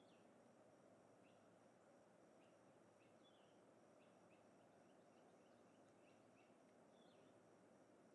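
Near silence: faint outdoor ambience with small birds chirping now and then.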